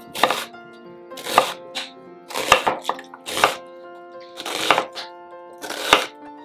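Chef's knife chopping an onion on a wooden cutting board: about six sharp cuts roughly a second apart, each a short rasp through the onion ending in a knock on the wood, over soft background music.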